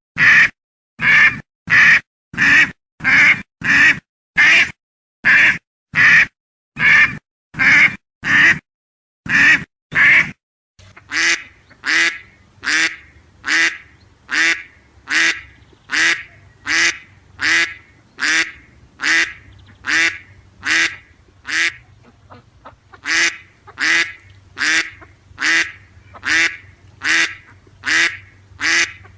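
A duck quacking over and over, about two quacks a second with dead silence between them. About ten seconds in, the sound changes to slightly slower quacks over a low steady hum, with one short pause late on.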